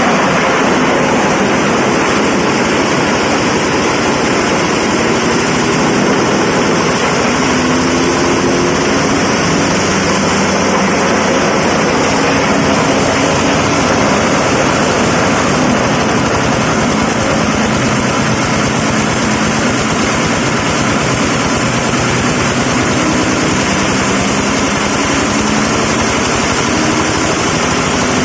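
Corn cob grinding machine running steadily and loudly: a continuous engine-like drone with a dense, rapid rattle.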